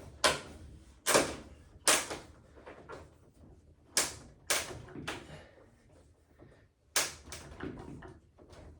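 Sharp knocks and snaps, about six or seven at irregular intervals, as a display panel and its locking strip are pressed and tapped into place.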